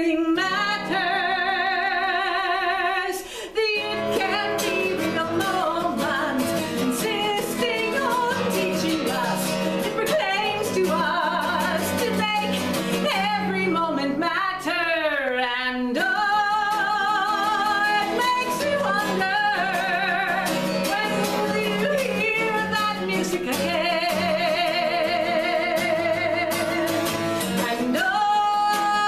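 A solo singer holding long notes with vibrato over a strummed acoustic guitar.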